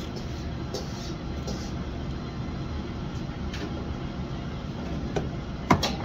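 Steady low rumble of a commercial kitchen's exhaust ventilation, with a few light taps of a chef's knife on a wooden butcher block as raw chicken is jointed, and one sharp knock of the knife on the block near the end.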